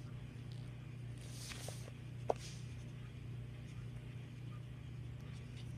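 Faint scratching of a felt-tip marker colouring on paper, with one sharp click a little over two seconds in, over a steady low hum.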